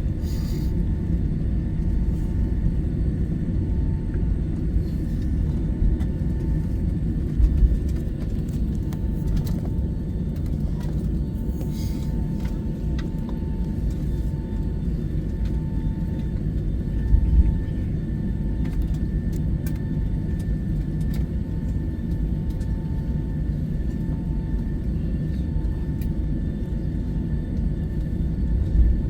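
Cabin noise of a Boeing 757-200 taxiing after landing: a steady low rumble from the idling engines and the rolling airframe, with a faint on-off tone and two brief bumps about ten seconds apart.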